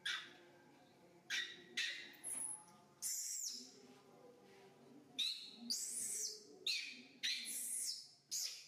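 Young macaque giving a string of short, shrill screaming cries, about ten, some sliding down in pitch. This is a distress or protest call as it is held and massaged.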